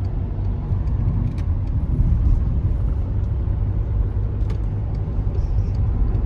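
Steady road and engine rumble inside a moving Volkswagen car's cabin, with a few faint clicks.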